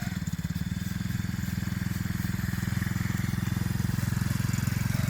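Small 110 cc four-stroke single-cylinder engine of a children's mini ATV running at a steady speed, its note holding even while it slowly grows louder.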